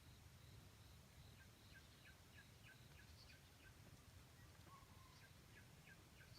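Near silence: a faint short chirp repeating about three times a second over a low rumble.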